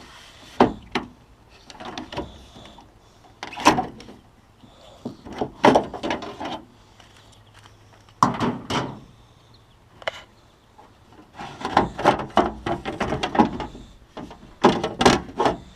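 Clunks, scrapes and rattles of a car door's window channel being worked loose and pulled out of the stripped door shell. They come in irregular bursts of knocks and scraping every second or two.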